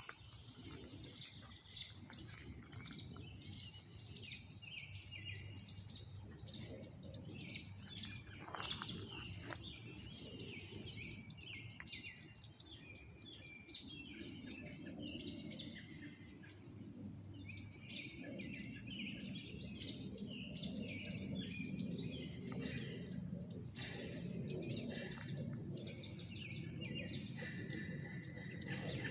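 Many songbirds chirping and singing at once, a dense chorus of short high calls, over a low steady rumble that grows stronger in the second half. A single sharp click near the end.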